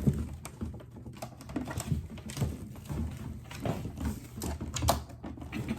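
Irregular plastic clicks and knocks as the parts of a Revair reverse-air hair dryer are handled and unlocked, over a steady low hum.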